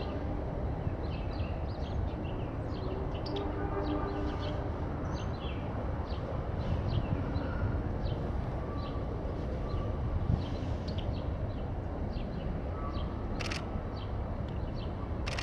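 Many short, high bird chirps scattered over a steady low rumble, with a faint pitched hum in the first few seconds. Two sharp clicks come near the end.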